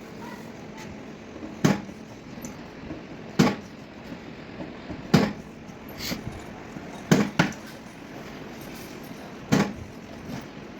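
Hammer taps on a car's sheet-metal body panel during dent repair: six sharp knocks about one and a half to two seconds apart, two of them in quick succession near the middle.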